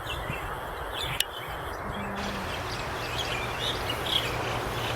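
Small birds chirping over a steady outdoor background noise, with one sharp click about a second in and a low steady hum joining about two seconds in.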